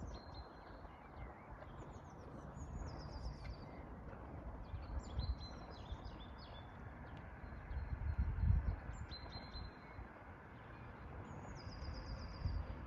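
Small songbirds singing short, high-pitched trilled phrases several times, one phrase near the end stepping down in pitch, over a steady low rumble that swells briefly just past the middle.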